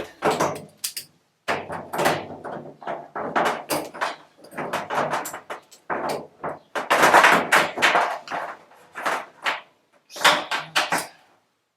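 Repeated knocks, thuds and rattles of hands-on building work, in irregular clusters with a few abrupt gaps of silence.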